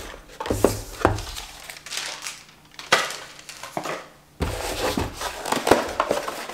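Cardboard mailer box being handled: rubbing and scraping of cardboard with a few sharp taps as it is turned over, set down on the table and picked back up, busier rustling from about halfway on.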